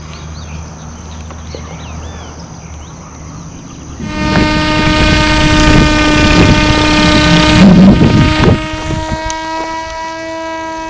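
Micro autogyro's small electric motor and propeller running, a steady buzzing whine that starts suddenly about four seconds in and holds, with wind rumbling on the microphone. Before it there is only a quieter low hum.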